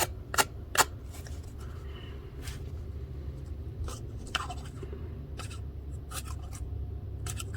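Freshly sharpened Kershaw knife slicing and shaving paper, testing the edge: a scatter of short, crisp paper cuts, several of them in quick succession past the middle.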